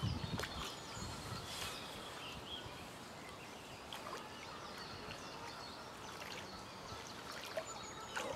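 Birds chirping, with a few small water splashes from a hooked carp wallowing at the surface beside a landing net.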